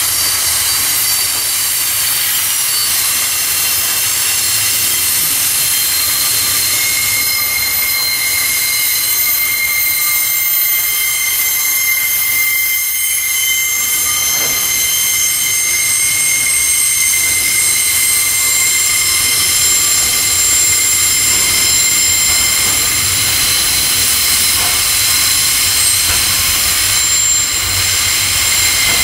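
Wheel squeal from long freight wagons (25.5 m SCT PQIY wagons) grinding round a tight curve: several high-pitched squeal tones ring at once over the low rumble of the rolling wheels, with another squeal tone joining about a quarter of the way in.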